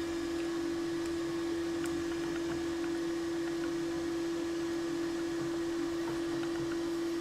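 Balterley Beo Regent toilet cistern refilling after a flush: the fill valve gives a steady hiss with a constant whistling tone.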